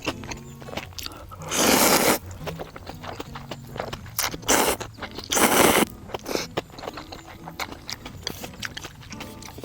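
A person eating ramen noodles: three loud slurps, about a second in and twice more around the middle, with chewing and small clicks in between.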